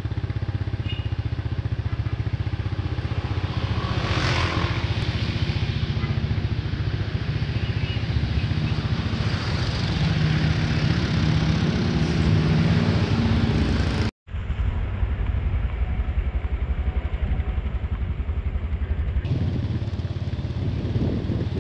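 Scania K380 coach's diesel engine running steadily at idle, a low, even pulsing throb, with a short hiss about four seconds in.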